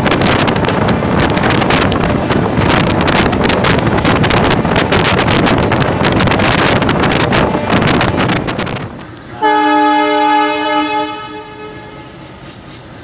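Wind buffeting the microphone over the rushing noise of a moving passenger train, cut off sharply about nine seconds in. Then a diesel locomotive's horn sounds one strong, steady multi-tone blast that fades after about two seconds into a faint held note.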